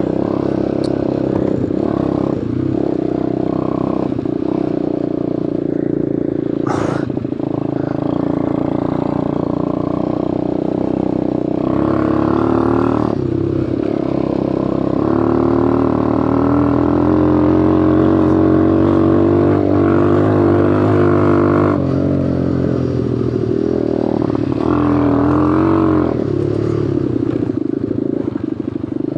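Hummer 125 cc quad bike's engine running while riding, its pitch rising and falling with the throttle.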